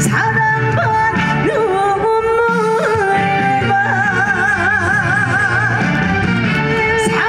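A woman singing over loud backing music, holding a long note with wide vibrato midway.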